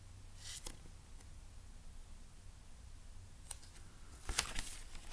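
Paper pages of a picture book being handled and turned: a few short rustles, the loudest near the end.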